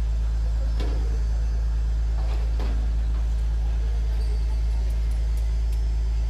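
Diesel engine of a mobile crane running steadily during a heavy tandem lift: a continuous low rumble, with a couple of brief knocks about one and two and a half seconds in.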